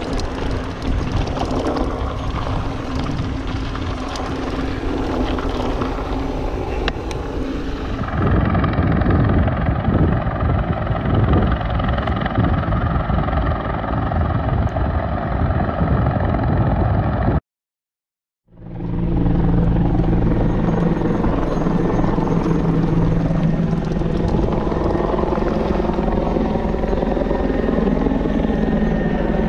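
Mountain bike rolling and rattling over a dirt trail for about eight seconds, then a rescue helicopter hovering over a hoist: a steady rotor thump with a turbine drone. The sound cuts out for about a second and the helicopter drone comes back.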